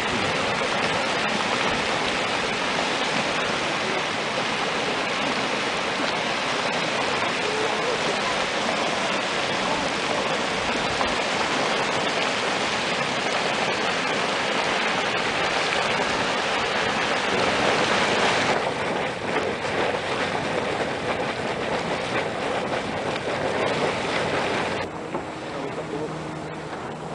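Boiling hot spring churning and splashing, a steady rushing, bubbling noise. About 25 seconds in it gives way suddenly to a quieter background with a faint low hum.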